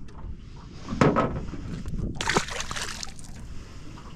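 Water sloshing and splashing beside a small fishing boat, with a sharp, loud splash about two seconds in.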